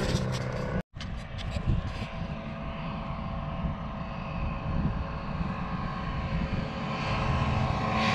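Ultralight aircraft's propeller engine droning steadily in flight overhead, growing louder near the end as it comes closer. A brief cut-out about a second in.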